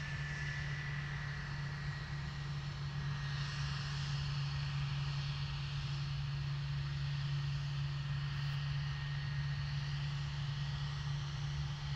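Airbus A320's twin jet engines running at low power as the airliner rolls slowly along the runway: a steady low hum with a thin high whine over it.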